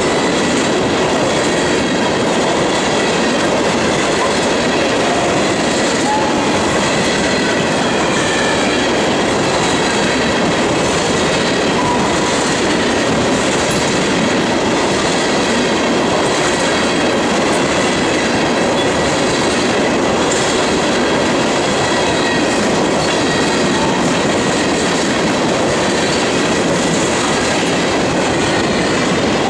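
Freight train of steel tank cars rolling past: a steady loud rush of wheels on rail, with a regular clatter about once a second and a faint high steady wheel squeal.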